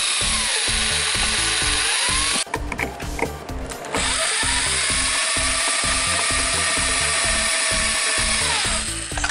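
A power drill with a twist bit drilling out a rivet in a car door's inner metal panel. It runs steadily, breaks off about two and a half seconds in for a second or so of uneven clicking and scraping, then spins up again and winds down near the end. Background music with a steady beat plays underneath.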